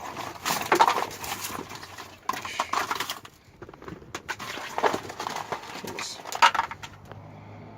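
Dry-ice-frozen, brittle sound deadening cracking and crunching as it is broken and peeled off the car's floor pan, in about four irregular bursts of crackling and snapping.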